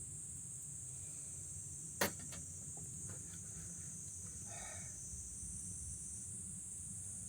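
Steady high-pitched chorus of night insects such as crickets, with a single sharp crack about two seconds in and a few faint ticks after it.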